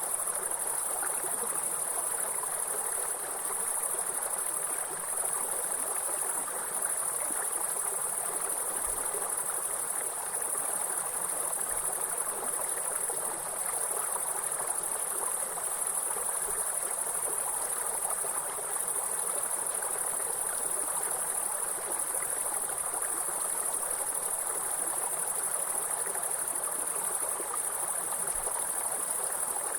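A high, steady insect trilling over the constant rushing of a water stream.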